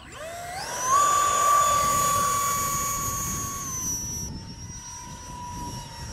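Electric ducted fan of a small 3D-printed RC jet spooling up quickly to a steady high whine for a hand launch, then whining on in flight at a slightly lower pitch after about four seconds.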